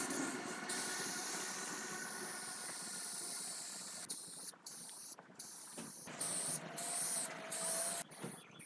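Aerosol spray paint can spraying. A long steady hiss comes first, then from about four seconds in a series of shorter bursts with brief pauses between them.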